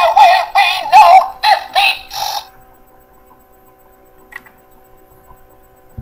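A remote-control Davros toy speaking in a synthetic electronic voice, a phrase of short wavering-pitch syllables that stops about two and a half seconds in. After that only a faint steady electronic hum is left, with a small click a little past four seconds.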